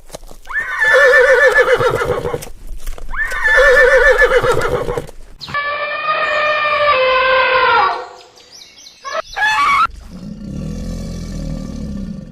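Horses neighing: two whinnies of about two seconds each with a shaking pitch, then a longer call that falls in pitch. A low, rough sound starts near the end.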